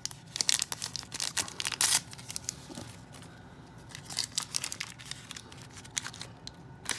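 Small plastic packaging being handled, crinkling and tearing in irregular bursts of rustles and clicks. The handling is busiest in the first two seconds, with another flurry about four seconds in.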